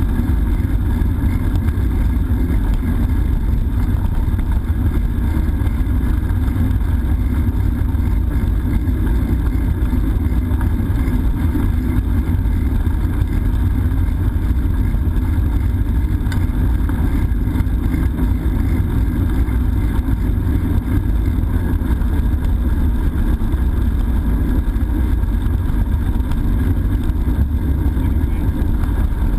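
Steady, loud low rumble of wind buffeting the microphone of a bike-mounted GoPro, mixed with tyre noise from the moving bicycle.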